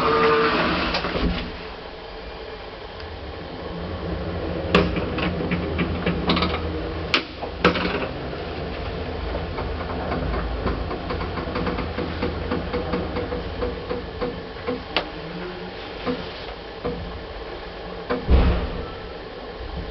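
An old lift (elevator) in use: a steady low hum of the car and its machinery, with scattered sharp clicks and knocks, and a heavier thump near the end.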